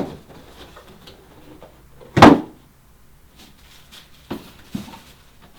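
One loud thump about two seconds in, then two softer knocks later on: the stand's parts or packaging being handled and set down.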